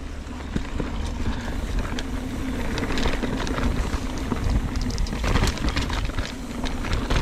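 Mountain bike riding down a dirt trail: tyres rolling over the ground with many quick clicks and rattles from the bike, over a low rumble of wind.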